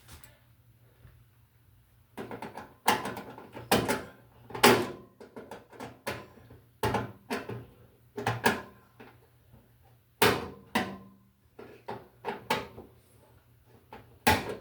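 Irregular sharp clicks and knocks, about fifteen over the last twelve seconds, from needle-nose pliers working a ground wire around the ground screw inside a range hood.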